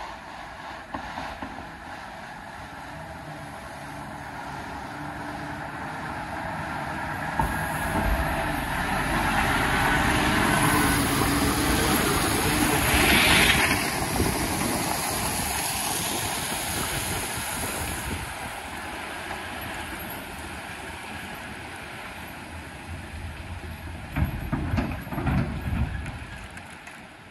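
Scania R730 truck's V8 engine running as the truck and its tipping trailer pass slowly, with the hiss and rattle of gravel pouring from the raised tipper bed onto the road. It grows louder to a peak about halfway through as it passes, then fades as it moves away.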